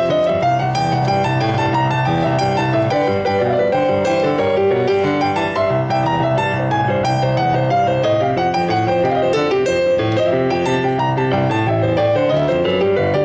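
Background piano music, a steady run of many short notes.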